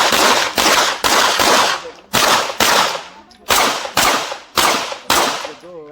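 Glock 34 Gen4 9mm pistol firing about ten shots in a quick string, mostly in pairs about half a second apart, each shot trailing a short echo.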